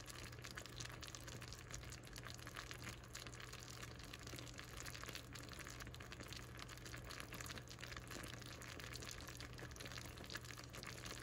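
Caramel syrup of sugar, butter and corn syrup bubbling in a saucepan on the stove: a faint, steady crackle of small popping bubbles as it boils up toward hard ball stage, at almost 225°F.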